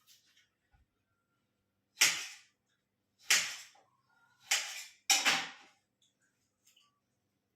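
Four sharp kitchen knocks of utensils striking hard surfaces, spaced about a second apart, the last two close together.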